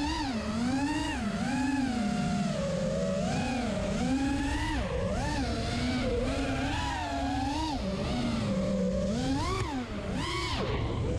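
Small multirotor drone's electric motors and propellers whining as it flies, the pitch rising and falling about once a second as the throttle is worked, recorded on board by its GoPro.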